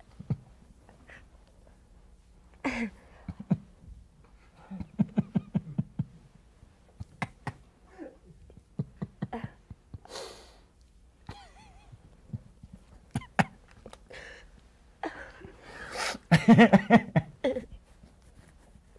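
A woman's wordless, quivering vocalizing: breathy gasps, trembling sighs and shaky half-sobs, in a mock-emotional acting impression. A stretch of rapid trembling pulses comes a few seconds in, and a louder burst of voice comes near the end.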